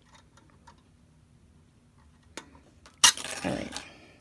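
Faint small clicks of handling, then about three seconds in a loud clatter of metal needle-nose pliers being put down on a hard tabletop.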